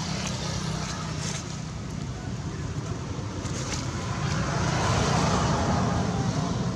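Steady traffic rumble, swelling to its loudest about five seconds in as a vehicle goes by.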